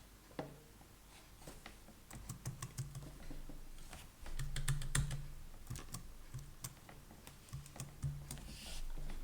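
Typing on a computer keyboard: irregular runs of keystroke clicks that start about two seconds in, with the busiest stretch in the middle.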